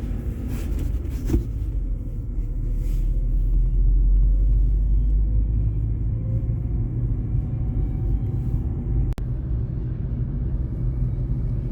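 Saab 9-3 being driven, its engine and road noise heard from inside the car as a steady low rumble that swells a little about four seconds in.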